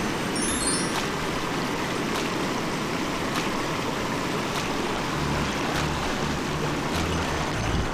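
Steady rushing of a clear mountain stream flowing over its bed. About five seconds in, low bass notes of background music come in over the water.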